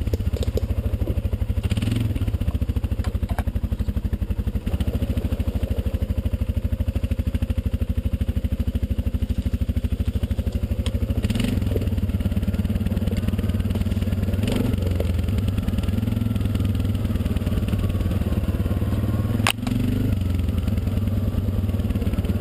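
ATV engine running steadily, with a few sharp knocks and clatters about halfway through and near the end.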